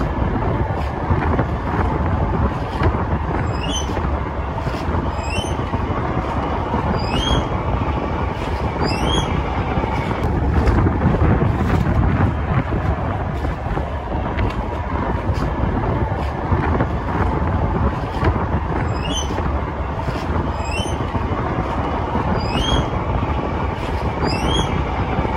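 Low steady rumble of a boat engine under way, with wind buffeting the microphone. Short rising chirps repeat every second or two in two spells, a few seconds in and again near the end.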